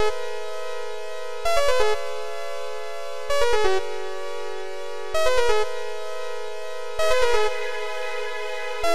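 Background electronic music: sustained synthesizer chords, with a louder phrase returning about every two seconds.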